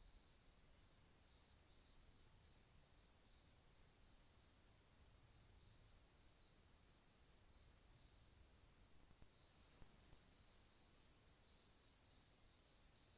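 Near silence with a faint, steady high-pitched trill of night insects such as crickets.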